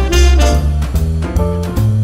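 Background music: upbeat swing jazz with saxophone and brass over a walking double bass and drums.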